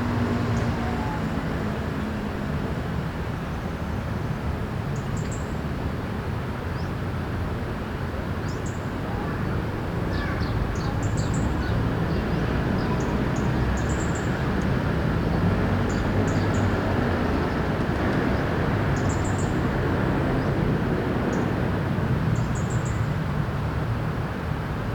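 Steady hum of city traffic, with faint short high-pitched notes recurring every two to three seconds.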